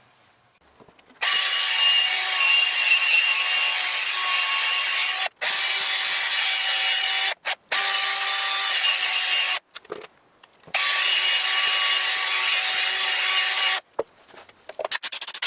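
Power sander running against a wooden burl, sanding off the leftover nub, in long stretches with a few brief stops. A quick run of clicks follows near the end.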